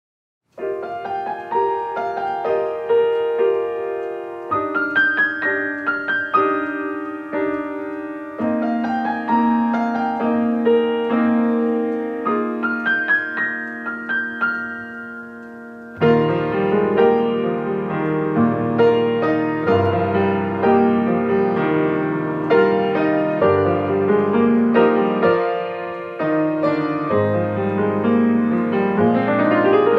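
Piano music closing the service, entering just after a short silence; about halfway through it grows louder and fuller, with low bass notes added.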